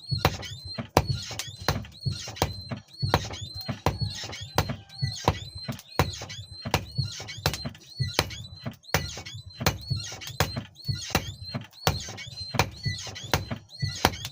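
Hammer blows on hot steel over an anvil, a steady rhythm of about two strikes a second, each with a short high metallic ring.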